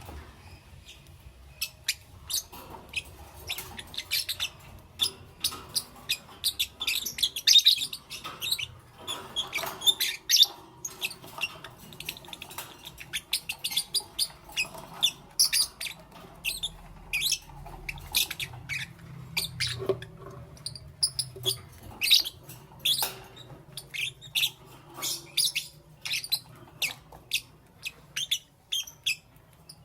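Lovebirds chirping: many short, shrill chirps in quick, irregular succession, starting about a second and a half in.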